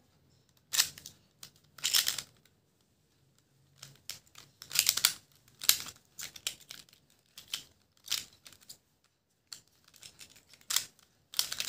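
Plastic triangular twisty puzzle (a Pyraminx) being turned by hand: irregular short clicking, scraping twists, some in quick runs, with brief pauses between moves.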